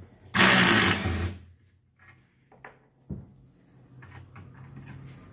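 Cordless drill whirring in one burst of about a second, backing a bolt out of the lid of a cast iron coffin. A single sharp click follows about three seconds in.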